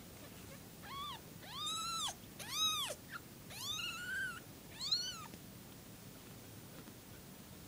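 Young kitten mewing: five high-pitched calls in about four seconds, each rising then falling in pitch.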